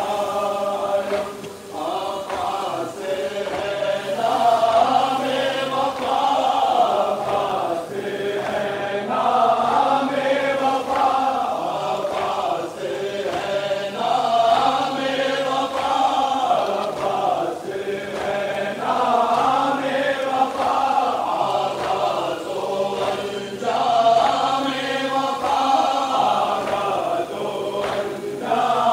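A crowd of men chanting a Muharram lament (noha) together in unison: a steady sung melody in repeated phrases, each line broken off by a short pause.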